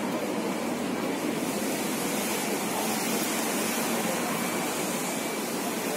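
Steady rushing noise with no distinct events, like wind, water or distant traffic.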